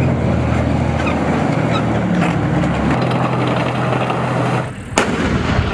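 Battle-tank sound effect: a steady low engine rumble that stops a little before the end, followed by one sharp crack.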